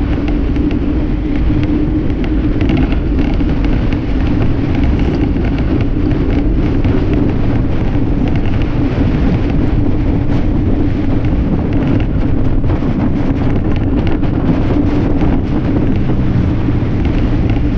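Loud, steady wind noise buffeting the microphone of an action camera on a bicycle speeding downhill, with a steady low hum beneath it.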